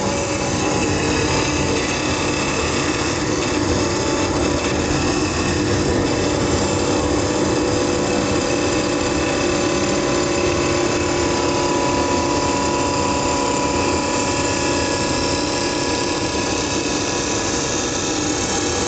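CNC wood-turning lathe cutting a spinning wooden blank: a steady machine hum and whine with the noise of the cutter shaving wood, running without a break, and a higher tone that grows stronger midway.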